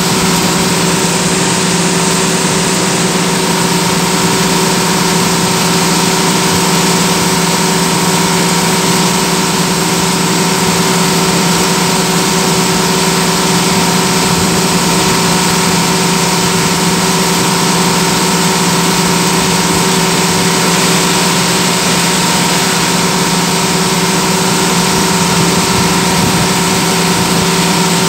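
Bus engine and tyre noise heard from inside the cabin while the bus drives at a steady speed: a loud, unchanging drone with a constant hum.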